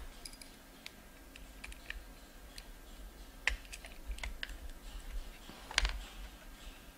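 Small plastic clicks and taps as a circuit board is pressed and seated back into a remote control's plastic case, with two louder clicks about three and a half seconds and nearly six seconds in.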